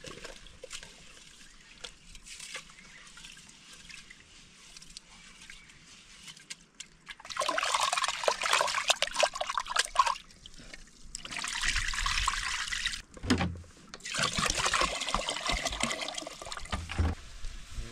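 Water pouring in three spells, about seven, eleven and fourteen seconds in, each lasting a few seconds, with only a faint hiss before the first.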